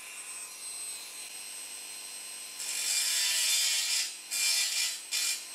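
Dremel rotary tool with a cut-off wheel spinning at speed with a steady high whine, then, about two and a half seconds in, biting into a thin steel case panel with a loud, harsh cutting hiss that drops out briefly a few times near the end. The cut goes quickly because the sheet steel is thin.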